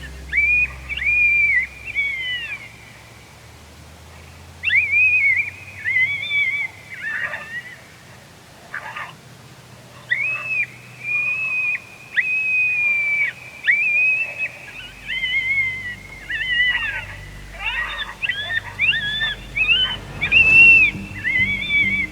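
Coyote howls and yips: bouts of high, wavering calls that rise and fall, repeated again and again in a group chorus, loudest near the end.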